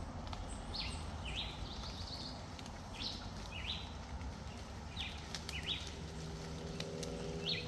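A small animal calling in repeated high two-note chirps, a pair about every two seconds, over a steady low background hum.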